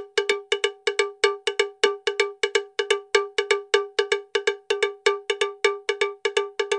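A struck, bell-like percussive tone repeated rapidly and steadily, about five strikes a second, each at the same pitch.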